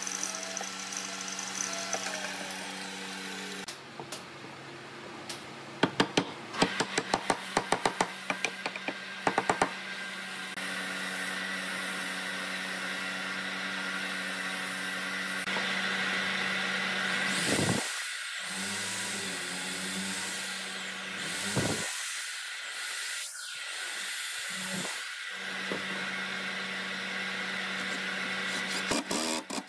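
Workshop tool sounds. A miter saw's motor hums and winds down, its pitch falling. After that come a quick run of sharp knocks on wood, then a steady hum and hiss, and near the end a cordless driver runs briefly, driving a screw into the wood.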